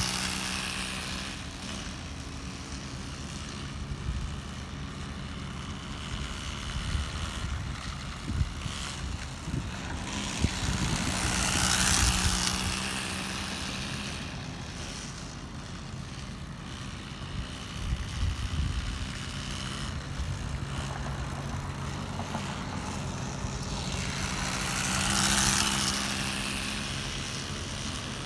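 Homemade gas-powered RC car's small engine running as the car drives laps. It grows loud as the car passes close about twelve seconds in and again near the end, fading between passes as the car runs farther off.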